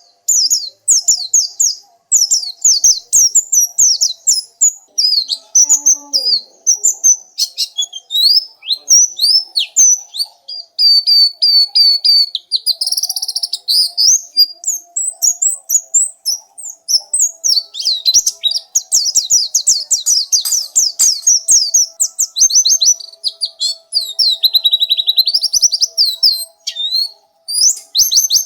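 Pleci (white-eye) singing a long, fast twittering song of high chirps and trills, broken only by brief pauses.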